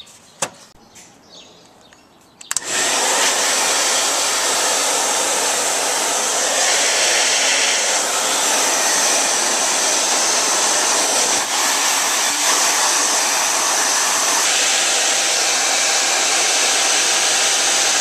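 A handheld hair dryer switched on with a click about two and a half seconds in, then blowing steadily with a loud rushing hiss as it blasts dust out of the vents of a desktop computer case.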